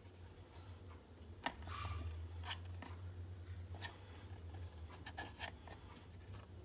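Fingers rolling peeled boiled eggs in cornstarch in a plastic tub: faint rubbing with a few light taps and clicks, over a steady low hum.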